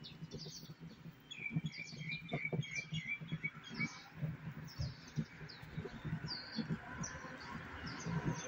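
Small birds chirping: many short falling chirps, with a quick run of repeated notes from about one to four seconds in. Soft irregular low knocks sound underneath.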